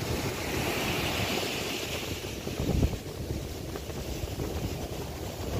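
Wind buffeting the microphone over the steady wash of surf breaking on the beach, with a stronger gust a little before the middle.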